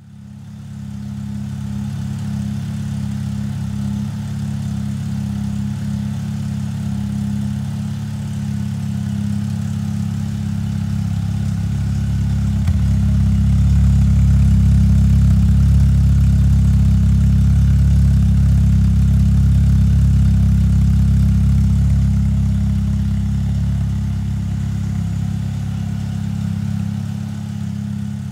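Ford Fiesta ST Mk6's 2.0-litre four-cylinder idling steadily on a cold start, through its newly fitted catalytic converter and exhaust mid-section. It grows louder and deeper around the middle as it is heard right at the tailpipe.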